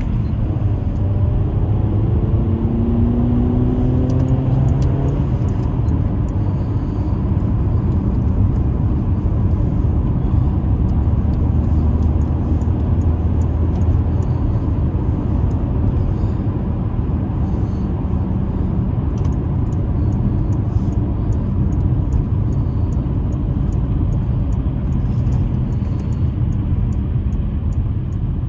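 A car driving: the engine rises in pitch twice in the first five seconds as it accelerates, then settles into a steady low rumble of engine and tyre noise.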